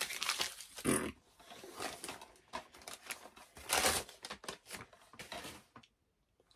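Paper wrapping crinkling and tearing as a small parcel is unwrapped by hand: a run of short rustles and rips, louder about a second in and again near four seconds.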